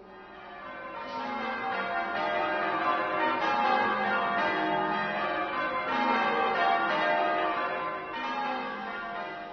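Music track of layered ringing, bell-like tones that swells in over the first second and then holds.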